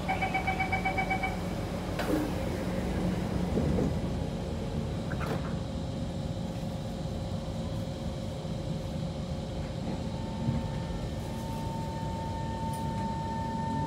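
Kawasaki C151 MRT train: a rapid run of door-closing warning beeps, then a sharp knock about two seconds in as the doors shut. Steady running rumble with a motor whine follows, and near the end a rising whine as the train pulls away.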